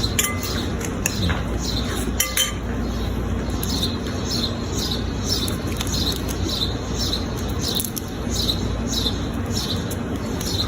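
A few clicks of cutlery in the first couple of seconds over a steady low background noise, with a bird chirping repeatedly, about twice a second.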